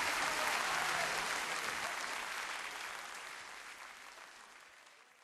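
Audience applause at the end of a song, fading out steadily over the last few seconds.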